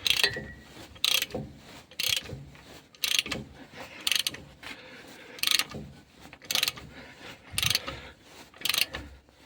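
Metal ratchet clicking in short, hand-worked strokes, roughly one a second.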